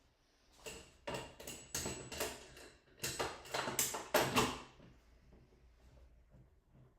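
A quick run of clattering knocks and scrapes from objects being handled, about a dozen over some four seconds.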